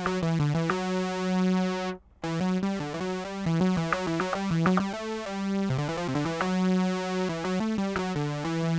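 Korg Volca Keys analog synthesizer playing a line of notes from a keyboard, some held for a second or two and some short, with a few sliding in pitch. It stops briefly about two seconds in.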